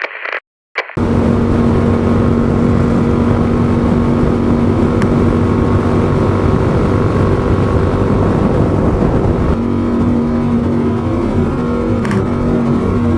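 Yamaha MT-07's 689 cc parallel-twin engine running at a steady pace while riding, with wind and road noise; the engine note holds an even pitch and eases off slightly about ten seconds in. A few short sounds come just before the engine starts in the first second.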